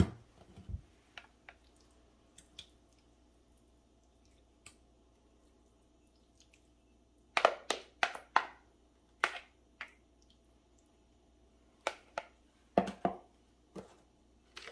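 A white ceramic casserole dish set down on a countertop with a knock, then thick creamy green bean casserole mixture scraped out of a mixing bowl into it: several short clusters of taps, scrapes and wet squelches in the second half.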